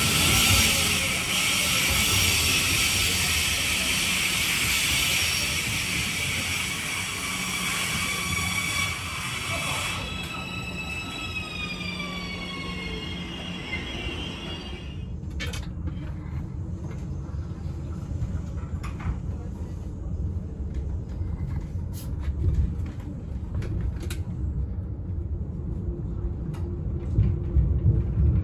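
A DB ICE 4 high-speed electric train running into the platform, its electric drive whining over rolling noise. The whine falls in pitch as the train brakes to a stop. After an abrupt cut, the low rumble of the train is heard from on board while it is moving, with a few sharp clicks.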